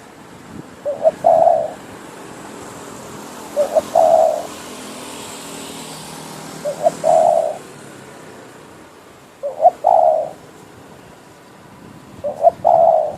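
Spotted dove cooing: a phrase of two quick short notes and then a longer coo, repeated five times about every three seconds.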